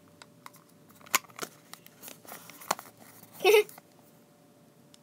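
Light tabletop handling of small objects: a few scattered sharp clicks and taps, and one brief louder rustle about three and a half seconds in.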